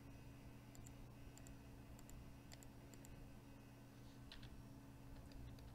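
Near silence: faint, scattered clicks of a computer mouse, about a dozen, over a low steady electrical hum.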